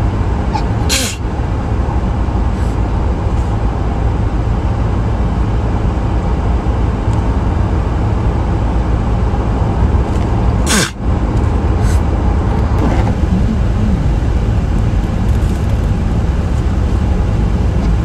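A steady low rumble, like a moving vehicle's road noise, broken by a few brief sharp sounds; the sharpest comes about eleven seconds in.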